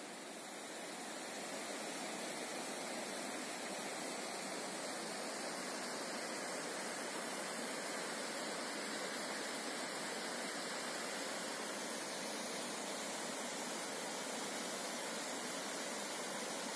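Mountain creek rushing over boulders: a steady, even rush of whitewater.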